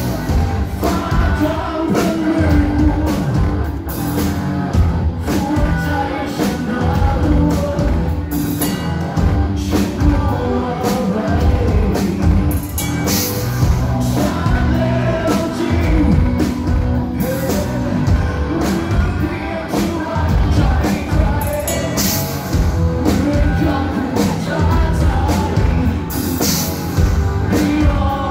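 Rock band playing live: a male singer over electric guitars and a drum kit, with a steady drum beat throughout.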